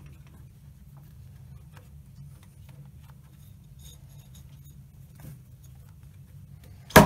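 Faint clicks and rubbing as a rubber V-belt is worked off the pulleys at the end of a Weiler Praktikant lathe's headstock, over a low hum. Near the end comes one loud, sharp metallic clank that rings briefly.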